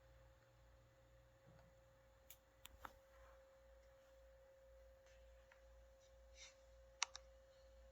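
Near silence: a faint steady hum with a few sharp clicks, the loudest about seven seconds in.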